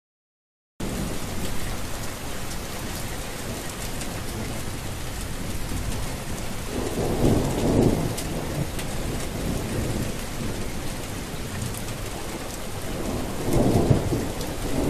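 Steady rain falling, starting about a second in, with low thunder rumbling twice, about seven seconds in and near the end.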